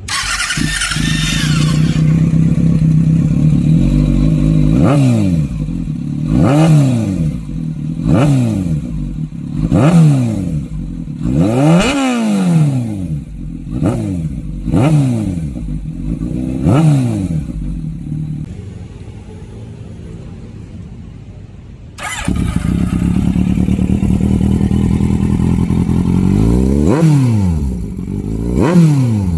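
Sport motorcycle engines with loud exhausts being revved in a standstill exhaust-sound test. One engine comes in and idles, then is blipped about eight times in quick succession, each rev rising and falling. After a brief quieter lull an engine comes in abruptly again, idles, and is revved twice near the end.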